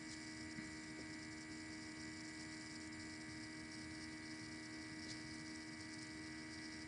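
Faint steady electrical hum with a light hiss: room tone under the recording.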